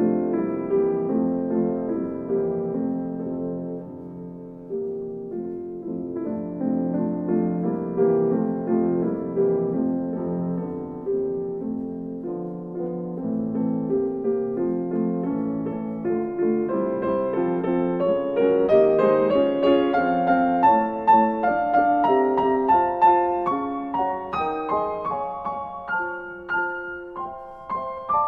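Background solo piano music: separate notes ringing and fading over low chords, with the melody moving into higher notes about two thirds of the way through.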